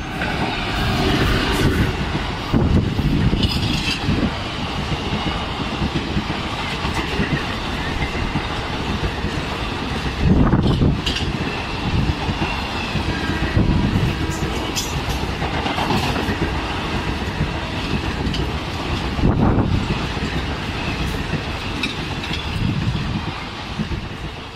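Express train of Indian Railways ICF passenger coaches passing close by at speed behind an electric locomotive: a continuous heavy rumble, with a clickety-clack of wheel sets striking rail joints, louder at intervals.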